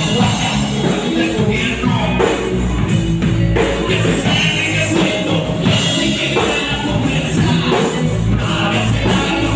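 Live rock band playing loud amplified music, with a steady drum-kit beat and guitar.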